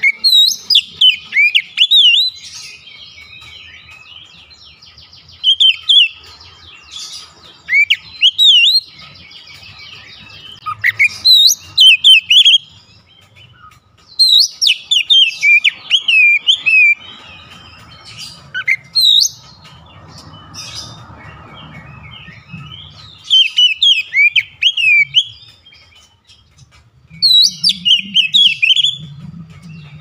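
Oriental magpie-robin singing: loud bouts of rapid, sweeping high whistled notes, coming every few seconds with short pauses between them.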